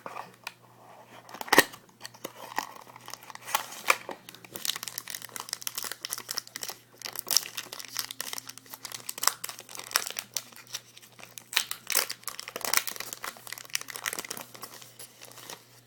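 Plastic and paper card packaging being torn open and crinkled by hand: an irregular run of crackles and rustles with a sharp tearing stroke about a second and a half in.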